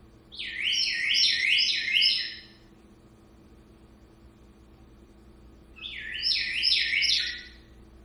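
African grey parrot imitating the door chime of a Ring home alarm: two bouts of quick, repeated falling whistled notes, the second starting about five seconds after the first.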